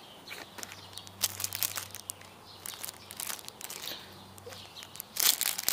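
Clear plastic packaging bag crinkling as it is handled, in short irregular crackles that grow louder and denser near the end.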